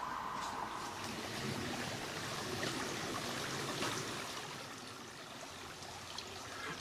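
Shallow brook flowing over stones and gravel, a steady trickle and rush of water that eases off in the second half.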